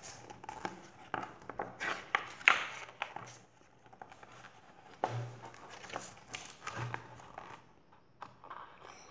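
Pages of a picture book being turned and handled close to the microphone: a run of paper rustles, flicks and light taps.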